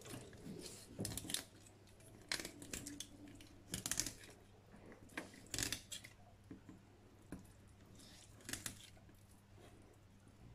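Large kitchen knife cutting into a whole raw salmon as it is filleted: a handful of short scraping, slicing strokes at irregular intervals.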